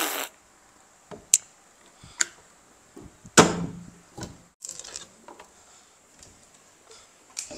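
Sparse light clicks and knocks of small objects being handled, with one louder knock about three and a half seconds in.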